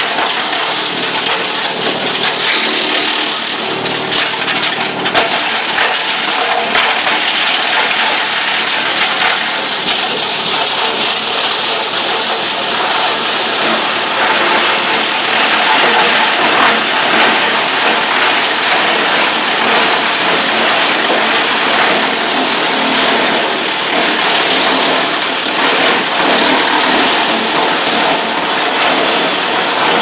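Electric-motor-driven industrial wood chipper (Kenobi 500EB) running and chipping wood, a dense steady crackle and rattle of chips over the steady hum of the motor and conveyors.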